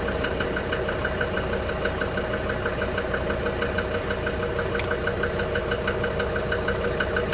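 DB29 diesel engine idling steadily with a regular, sharp injector knock, about six ticks a second. It is running with air in the fuel system: foam and small bubbles in the fuel return, and the system will not bleed clear.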